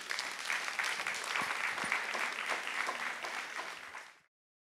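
Audience applauding with dense, sustained clapping that cuts off abruptly about four seconds in.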